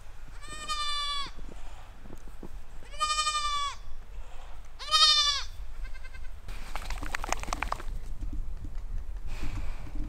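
A goat bleating three times, each call short and falling away at the end. A scratchy rustling noise follows about seven seconds in.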